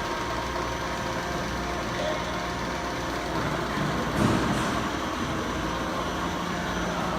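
Steady machine hum in a machine shop, an even drone made of several fixed tones over a broad hiss. A brief louder sound stands out about four seconds in.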